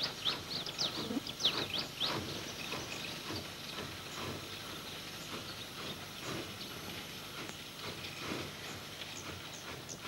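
Birds chirping outdoors in quick short calls, busiest in the first two seconds and scattered after, over a faint steady hiss.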